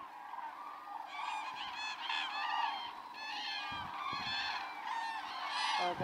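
A distant flock of large birds calling, many short calls overlapping into a continuous chorus that grows from about a second in.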